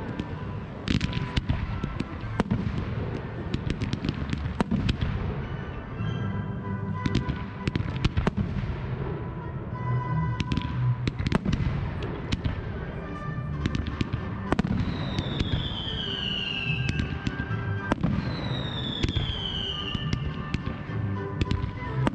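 Fireworks display: a dense run of bangs and crackling from bursting shells and rising comets, with music playing underneath. Three long falling whistles sound in the second half.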